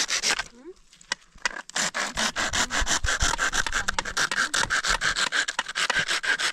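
Fast, even rubbing or scraping strokes, about five or six a second, with a short pause about a second in before they resume.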